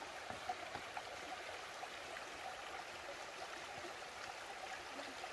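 Mountain stream running over rocks: a faint, steady rush of water.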